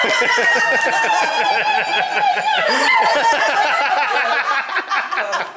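A woman's loud, long, high-pitched scream of delight, slowly falling in pitch, that gives way about three seconds in to laughter from several people.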